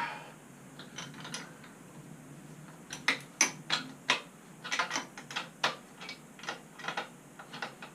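Ratchet wrench clicking as it turns a 10mm bolt, the clicks coming in quick irregular runs from about three seconds in.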